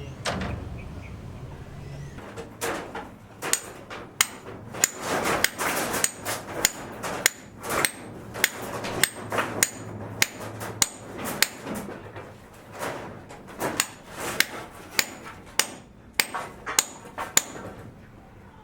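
Repeated hammer blows at an irregular pace of about one to two a second, several of them leaving a short high metallic ring. A low hum dies away about two seconds in.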